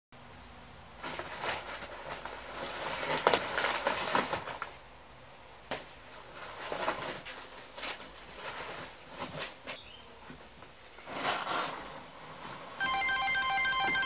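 Tissue paper rustling and crinkling in several bursts as it is pulled out of a cardboard box. Near the end music starts, louder, with a ringing pattern of repeated high tones.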